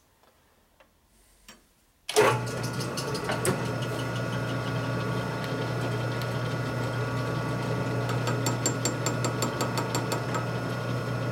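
A shop machine's electric motor switches on about two seconds in and runs steadily with a low hum and gear whine, with light clicking over it near the end.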